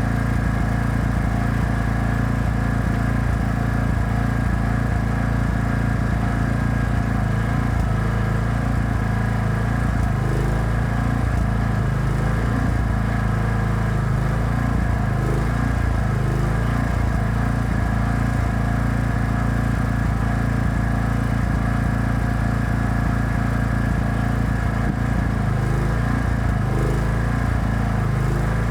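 Engine of a welding generator running steadily.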